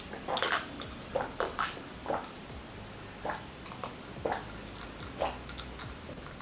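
Close-miked mouth sounds of eating: wet chewing and lip smacks, short separate sounds coming every half second to second.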